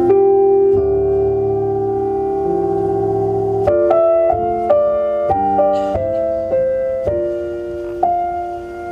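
Solo piano music played through a 2008 Hyundai Azera's factory car stereo: held chords at first, then a run of changing notes and chords.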